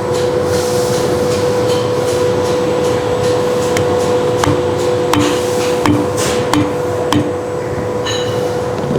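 Mallet striking a plastic drive tool against the hydraulic piston of a boost pump intensifier to drive it free: a series of sharp knocks, coming regularly about one every two-thirds of a second in the second half. A steady hum runs underneath.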